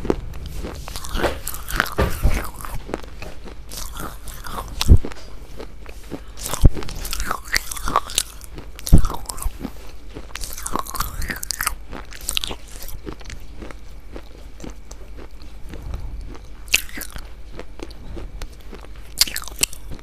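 Close-up crunching and chewing of crisp food, in irregular bites and crackles, with sharp loud snaps about 5, 6.5 and 9 seconds in, over a steady low hum.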